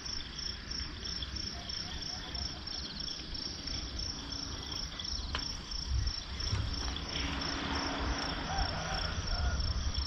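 Crickets chirping in a steady, high, pulsing trill, with a low uneven rumble underneath.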